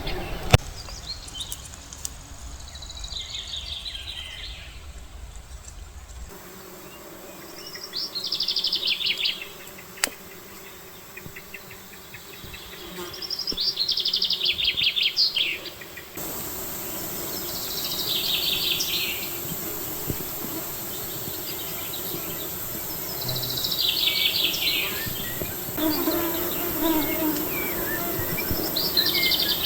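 A songbird singing the same short, fast, trilled phrase over and over, each phrase falling in pitch, about every five seconds, with a steady low hum beneath.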